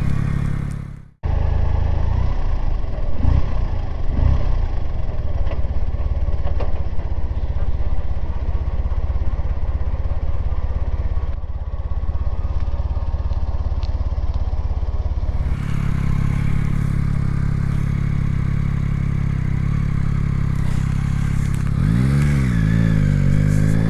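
Yamaha XSR900 three-cylinder motorcycle engine running under way, with wind noise. The revs rise and fall as it pulls away and changes speed, and the sound changes abruptly twice where clips are cut together.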